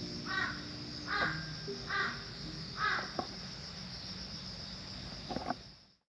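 A crow cawing four times, the calls evenly spaced a little under a second apart, over a steady high insect drone. The sound then cuts out abruptly.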